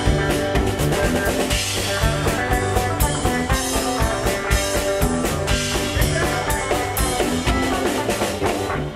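Live rock jam: drum kit played in a steady, busy groove under electric guitars playing chords.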